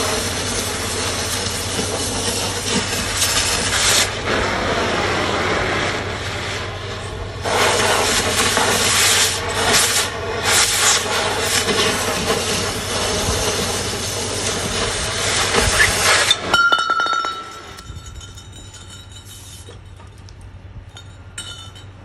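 Oxy-fuel cutting torch hissing loudly as it cuts through steel oil-field pipe. The hiss stops abruptly about three-quarters of the way through, leaving a much quieter background.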